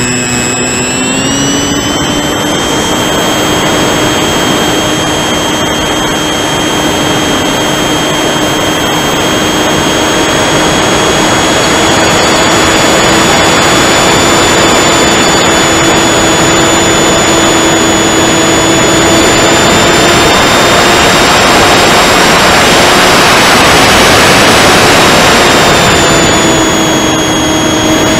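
Onboard sound of a 2217 1300kv brushless motor driving a 9x6 pusher propeller on a foam flying wing. It spools up in the first couple of seconds, then holds a steady high whine and buzz under power, mixed with wind rush over the camera. The pitch dips briefly near the end as the throttle eases.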